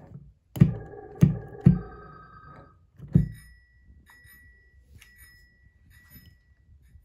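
Piano keys pressed three times in quick succession, each with a knock and a short ringing note. A fourth press about three seconds in is followed by a thin, high, steady tone with a fluttering, bell-like ring: the strange sound the piano is making.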